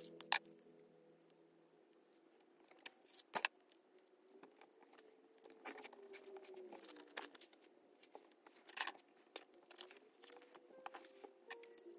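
Paper sheets, photocards and a tape dispenser being handled on a desk: scattered light taps and rustles, with a couple of sharper clicks about three seconds in.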